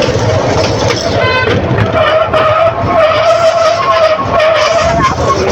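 Train brakes squealing, metal on metal, over the rumble of the running train as it slows to a stop. A single high squeal comes in about two seconds in and holds for about three seconds before fading.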